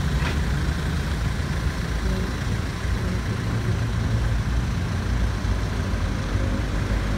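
Hyundai Porter II's D4CB four-cylinder diesel engine idling steadily.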